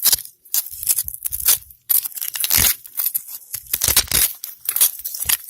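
Loose rock and gravel crunching and scraping in quick, irregular crackles, with a few sharper crunches.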